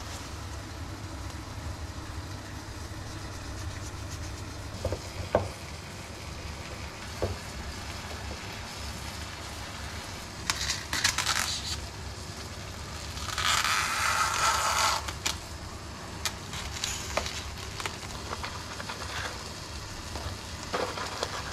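Food frying in a pan on the stove, a steady faint sizzle under kitchen handling noises. There are a few light knocks, and two short bursts of rustling near the middle, the second one the loudest.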